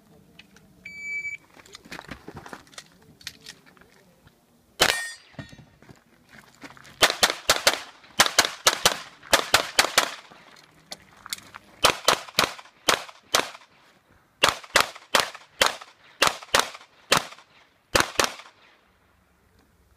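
Shot timer beep about a second in, then a competitor's Tanfoglio pistol firing strings of quick shots with short pauses between runs, during an IPSC stage.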